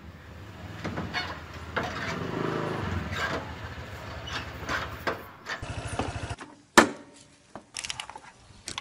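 Motor scooter engine running as the scooter rides up and comes to a stop, then cutting out about six and a half seconds in. A sharp click follows, then a few lighter clicks.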